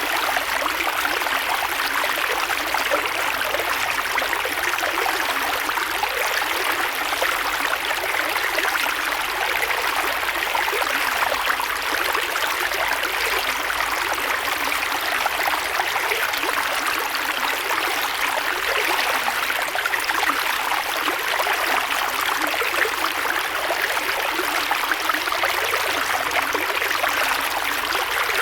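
Creek water flowing and babbling over stones, with a steady rushing and small splashes.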